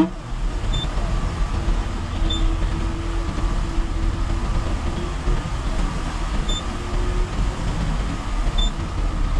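Steady low rumble of a TNSTC bus's engine and running gear, heard from inside the driver's cab as the bus drives along.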